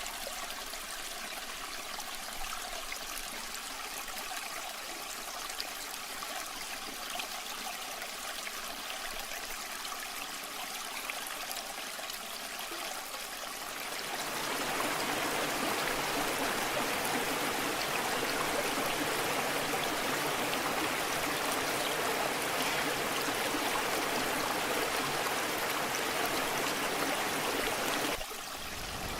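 Steady rushing water of a waterfall. About halfway through it turns louder and fuller, and near the end it drops briefly before changing again.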